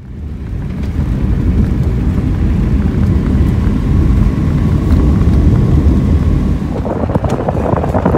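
Subaru Outback driving on a gravel dirt road: a steady low tyre and road rumble that fades in at the start. Near the end it turns brighter, with wind rush and scattered gravel ticks.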